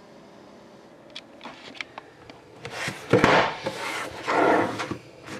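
Hands handling a trading-card box: a few light clicks, then from about halfway through, louder irregular rustling and scraping as the box is moved and turned.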